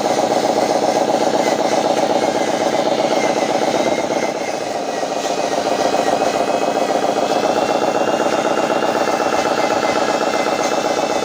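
Radio-controlled model Hino 500 dump truck running, a steady engine-like drone with a thin high motor whine over it, easing off briefly about four seconds in and then picking up again.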